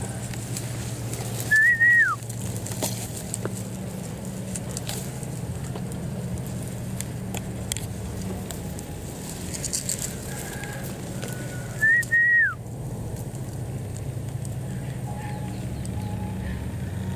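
A loud clear whistle sounds twice, about ten seconds apart, a second and a half and twelve seconds in. Each is a short high note, held and then falling away sharply at the end. Fainter short notes come between and after, over a steady low hum.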